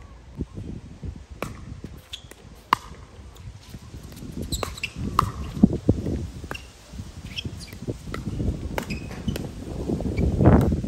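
Pickleball paddles striking a hard plastic ball during a rally: a string of sharp, isolated pops, with short high squeaks from shoes on the court. A low rumble underneath grows louder near the end.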